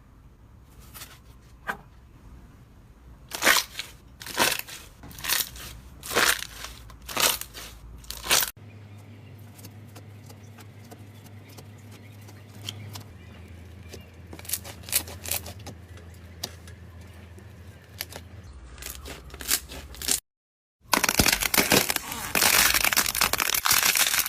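Slime being pressed and worked by hand, making crunchy crackling pops: a run of separate loud pops, then a few small ones, then a dense crackling near the end.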